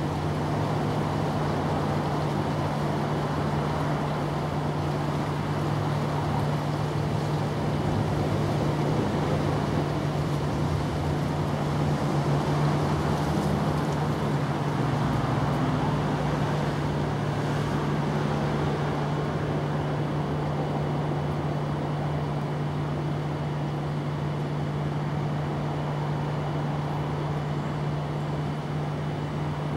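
Steady low mechanical hum over a constant wash of noise, unchanging throughout.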